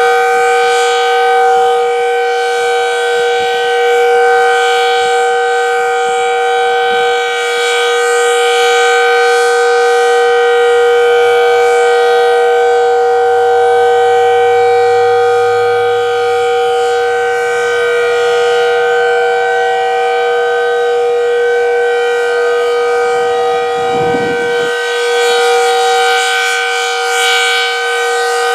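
Decot Red Arrow Model 12 outdoor warning siren sounding its steady alert signal: a sustained two-note tone that holds its pitch, swelling and fading a little in loudness as the siren head rotates.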